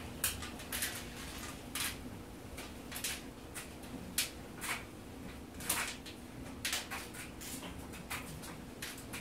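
Irregular light clicks and knocks, roughly one or two a second, over a faint steady hum.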